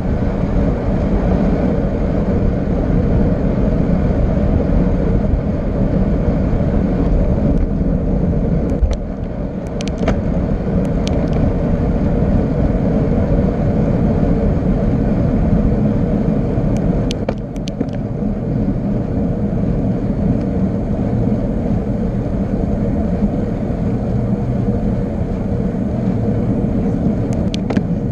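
Steady rush of wind and road noise from moving fast down a mountain road, with a few brief high squeaks or clicks about ten seconds in, around seventeen seconds, and near the end.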